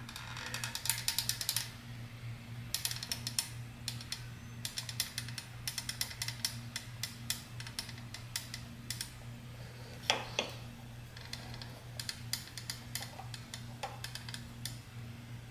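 Caulking gun being squeezed in short spells, its trigger and push-rod mechanism clicking rapidly as silicone caulk is forced out. A steady low hum runs underneath.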